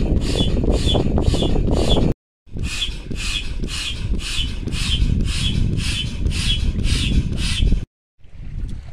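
Foot pump inflating an inflatable dinghy through a hose: a steady run of squeaky, hissing strokes, about two and a half a second, broken by two short silences.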